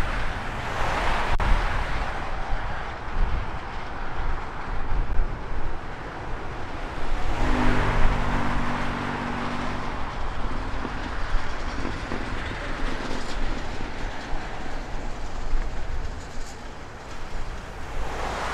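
Wide-body jet airliner engines at take-off power: a continuous roar with a deep rumble that swells twice. A low steady hum joins in for a couple of seconds about halfway through.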